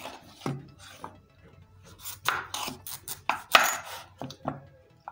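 A large kitchen knife slicing through raw butternut squash and knocking on a wooden chopping board: a series of uneven cuts and knocks, the loudest a little past halfway.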